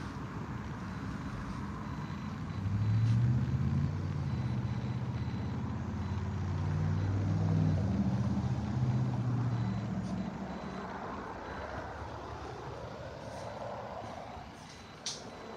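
Low engine rumble of a vehicle, swelling from about two and a half seconds in and fading after about ten seconds, with one sharp click near the end.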